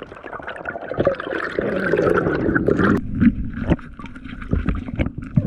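Water sloshing and gurgling around a free diver in the sea, with a rushing stretch about a second in and scattered knocks and splashes after it.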